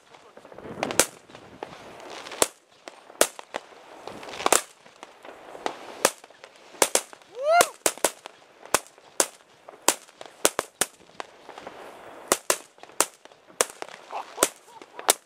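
Firecrackers going off one after another: about twenty sharp bangs at irregular intervals, some loud and close, others fainter. A short rising tone sounds about halfway through.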